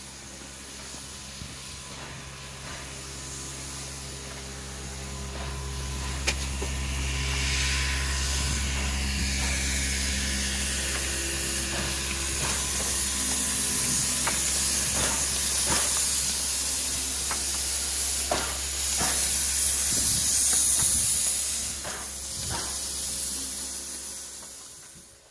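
Steam locomotive venting steam with a loud hiss from around its cylinders. The hiss builds over several seconds, is loudest a few seconds before the end, then fades out. A steady low hum runs underneath, and there are a few sharp clicks.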